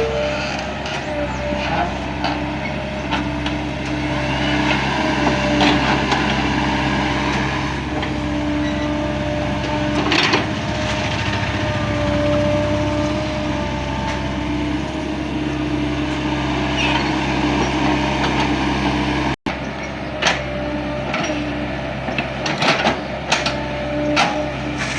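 Excavator engine running steadily, with a few sharp knocks and clanks, more of them near the end.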